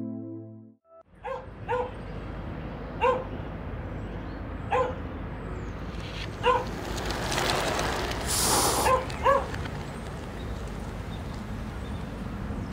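A dog barking, seven short single barks one to two seconds apart, over a low steady street hum. A brief hiss rises and falls around eight to nine seconds in.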